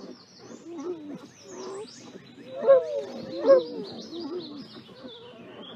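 Two wolves whining and moaning at each other while they nuzzle and mouth in play: a series of wavering, pitched cries. The two loudest come about three seconds in, under a second apart.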